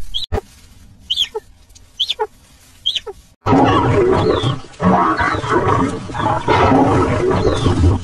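Lions growling and snarling, loud and continuous, beginning suddenly about three and a half seconds in. Before that, four short high squeaks that fall in pitch, about one a second, over a quiet background.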